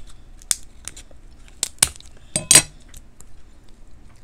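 King crab leg shell being snipped with kitchen scissors and cracked apart by hand: a few sharp clicks and cracks, the loudest about two and a half seconds in.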